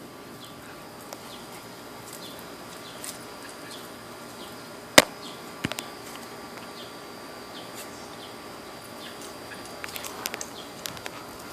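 Quiet backyard ambience with faint, short high chirps repeating throughout, and one sharp click about five seconds in, with a few lighter clicks near the end.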